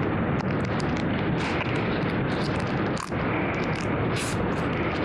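Steady crackling static, as loud as the speech around it, with a brief drop about three seconds in.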